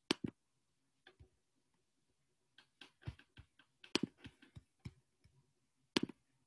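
Scattered sharp clicks and taps of a computer mouse and keyboard, a few at first, then a quick cluster in the middle, as a screen share is being started.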